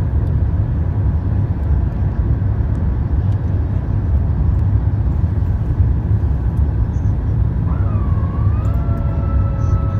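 Steady low rumble of jet airliner cabin noise, engines and airflow, during descent on approach. A steady tone with a few pitches comes in about eight seconds in, briefly dipping then settling in pitch.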